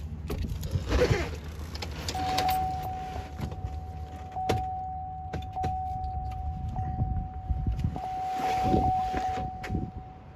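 GM pickup engine idling with the transmission in gear, under a steady high-pitched electronic tone that starts about two seconds in, with scattered clicks and rustling.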